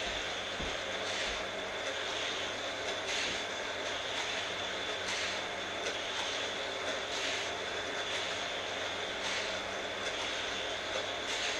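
Battery-powered Hot Wheels track boosters whirring steadily while die-cast cars lap the orange plastic track. A brief swell comes about every two seconds as a car passes through a booster.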